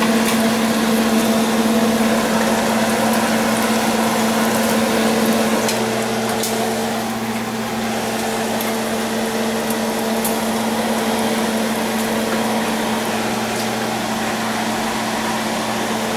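Breaded shrimp frying in a pan of hot oil: a steady sizzle with a few small pops, over a constant hum. The sound drops a little about five and a half seconds in.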